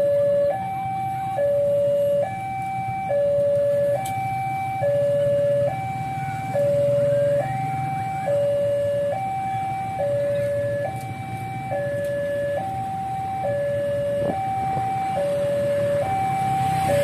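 Railway level-crossing warning alarm sounding its electronic two-tone hi-lo signal, switching between two pitches a little under once a second, while the barrier is closed for an approaching train.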